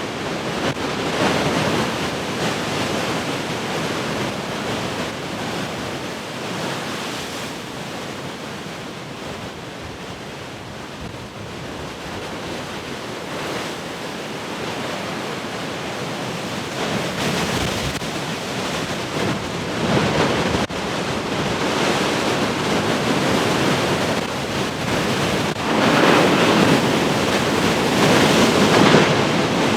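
Large ocean waves breaking and washing on the shore in a constant roar of surf, with heavy surges a few seconds in, around the middle, and loudest near the end; wind gusts across the microphone.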